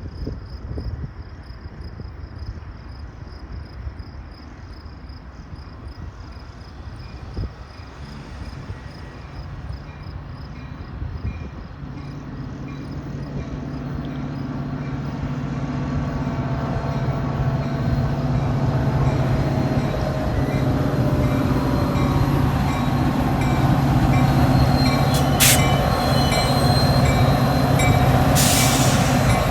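A diesel-hauled train approaching, getting steadily louder from about halfway through, with a steady engine hum and brief high wheel squeals near the end. Faint insect chirping is heard before the train arrives.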